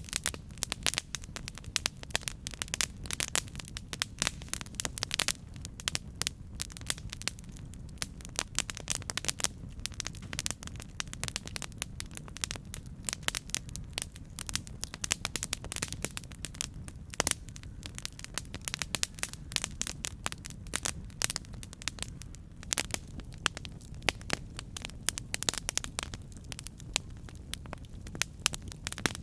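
Wood fire burning: dense, irregular pops and crackles over a steady low rumble of flames.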